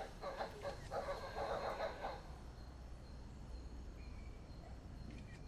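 A rapid, pulsing animal call in the forest for about the first two seconds, then it stops, leaving a faint background with a thin steady high tone.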